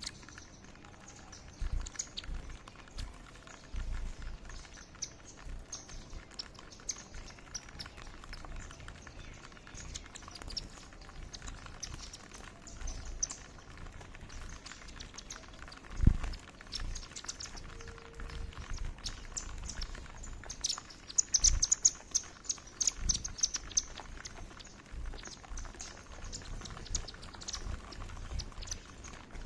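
Indian silverbills giving many short, high chirps, thickest about two-thirds of the way through, with scattered low thumps, the loudest about halfway in.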